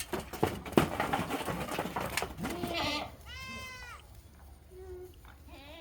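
Goats bleating: one long, clear bleat about three seconds in, then fainter, shorter bleats. Before it, a run of clatter and knocks as the herd moves about.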